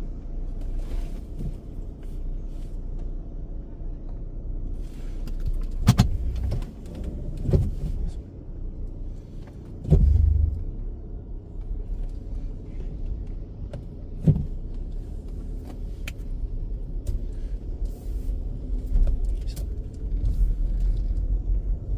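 Car moving slowly, heard from inside the cabin: a steady low rumble with a few separate knocks and thumps, the strongest about ten seconds in.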